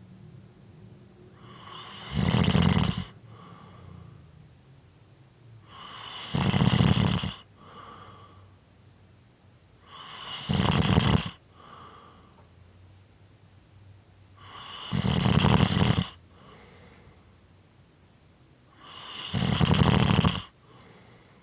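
A person snoring rhythmically: five loud, rough snores about every four seconds, each lasting about a second, swelling and then stopping abruptly. A quieter breath comes between them.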